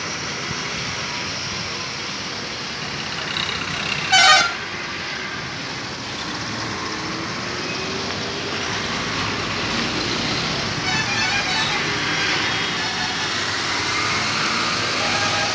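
Heavy trucks on a highway, a steady traffic rumble, with one short, loud horn blast about four seconds in and a fainter, wavering horn around eleven seconds.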